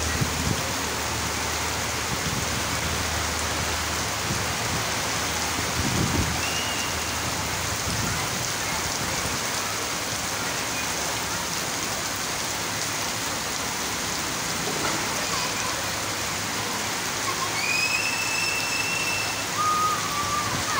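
Heavy rain pouring steadily onto a street, a dense even hiss. A few short high-pitched calls sound near the end.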